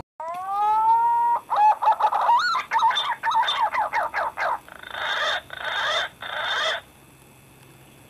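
Green pigeon (punai) song: a whistle that rises and levels off, then a quick run of wavering whistled notes, ending in three short harsh rasping phrases.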